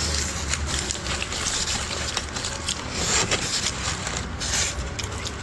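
Close-up eating and handling noises at a table: scattered clicks and scrapes of chopsticks and fingers in a foam takeaway box, over a steady rushing hiss.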